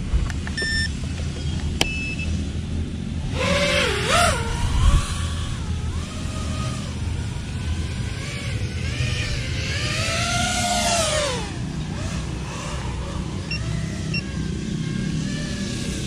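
Racing quadcopter's brushless motors, heard from the pilot's position, spinning up about three seconds in. Their whine rises and falls in pitch with the throttle, with one big swell near eleven seconds. Before that there are a few short electronic beeps over a low steady rumble.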